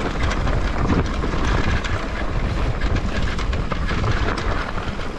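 Wind buffeting the microphone and a mountain bike's knobby tyres rolling over a dirt trail, steady and loud, with many small clicks and rattles from the bike and loose stones.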